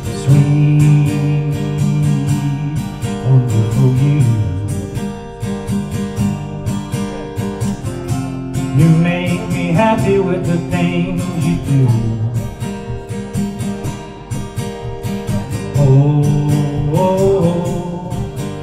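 A man singing into a microphone and strumming an acoustic guitar. Sung lines come at the start, again around the middle and near the end, with strumming between them.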